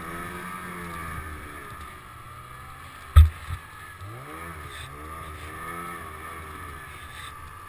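Snowmobile engine running while riding over tracked snow, its pitch rising and falling with the throttle. A loud thump about three seconds in, then a smaller one just after.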